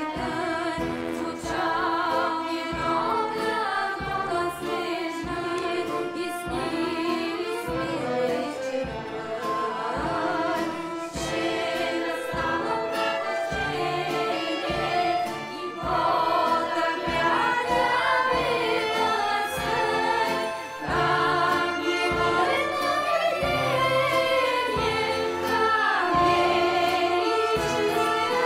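Music with a choir of voices singing over a steady drum beat.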